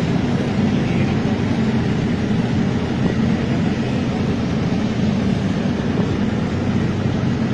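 Military cargo trucks' engines running as the column drives slowly past, a steady low drone.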